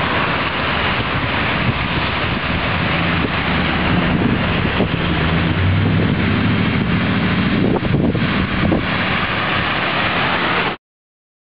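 Storm wind buffeting the microphone over steady rain, with a truck's engine and tyres on the wet road passing around the middle. The sound cuts off suddenly near the end.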